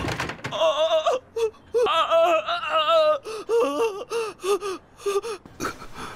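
A young man's voice gasping and whimpering in a run of short, wavering cries that trail off near the end.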